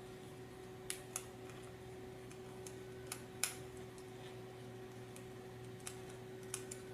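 Scattered small clicks of a screwdriver and M3 bolt against a plastic battery box as the bolt is driven through its hole, about seven in all, the sharpest about a second in and about three and a half seconds in.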